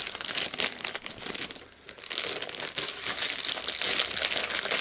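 Clear plastic bag crinkling and rustling as it is handled and pulled open, with a short lull a little before two seconds in and denser crinkling after it.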